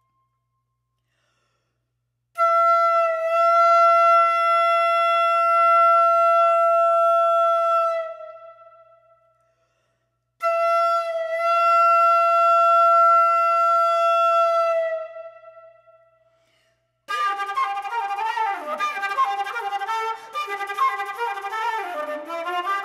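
Solo concert flute: two long held notes of about six seconds each, with a silent pause between them, followed about seventeen seconds in by a busy passage with several pitches sounding at once and moving quickly.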